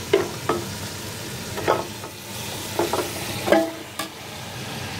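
Hot oil sizzling in a metal pot as marinated beef chops are tipped in from a steel bowl onto frying tomatoes and stirred with a wooden spoon. There are about six sharp knocks and clinks of metal on metal along the way.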